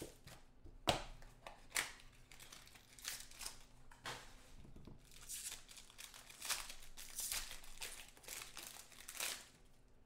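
Clear plastic shrink-wrap being torn and peeled off a small trading-card box, crinkling in quick irregular bursts with a few sharper crackles. It stops shortly before the end.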